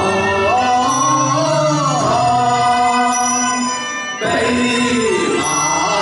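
A man singing a Cantonese operatic song (yuequ) in long held notes that slide between pitches, accompanied by a small Chinese instrumental ensemble. The voice drops out briefly a little after four seconds in, then comes back.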